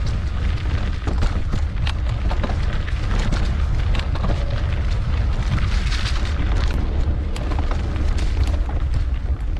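Heavy wind rumble on the microphone of a mountain bike riding fast down a trail, with rattling clicks from the bike over rough ground.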